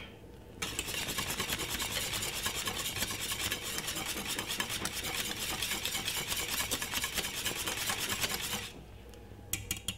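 Wire whisk beating thick porridge in a stainless steel saucepan: fast, even scraping strokes that start about half a second in and stop near the end, followed by a few light clicks.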